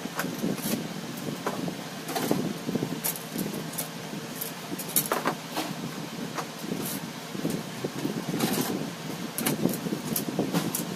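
Hand tools and chainsaw parts being handled during a repair: irregular clicks, clinks and knocks of metal and plastic. The saw's engine is not running.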